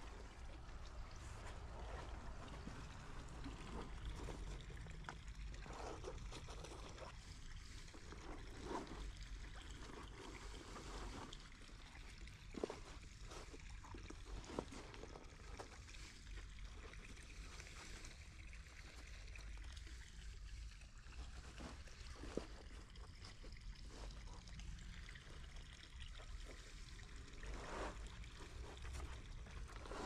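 Water trickling and running steadily over a low rumble, with scattered light knocks here and there.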